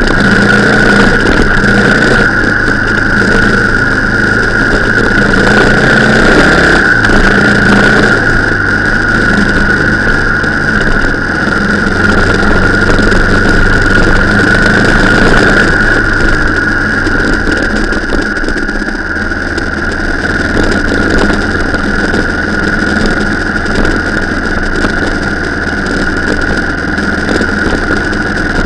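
Car engine running steadily at low load, with a steady high whine over it; it eases off a little about two-thirds of the way through.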